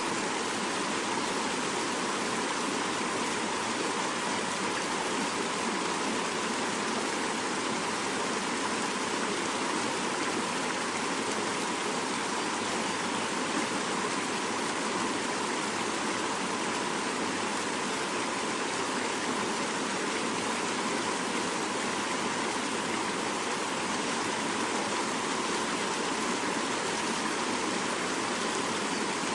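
Fast-flowing mountain river rushing over rocks, a steady, unbroken rush of water.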